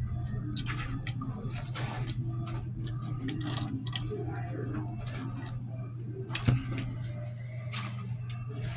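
Diner background noise: a steady low hum with scattered small clicks and clatter, and one sharp thump about six and a half seconds in.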